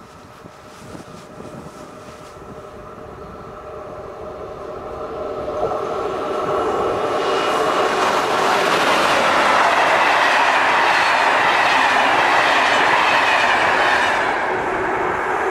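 Electric locomotive hauling a passenger train approaches and passes, wheels running on the rails. The sound grows steadily louder over the first half, stays loud with a steady whine under the rush, and eases slightly near the end as the coaches go by.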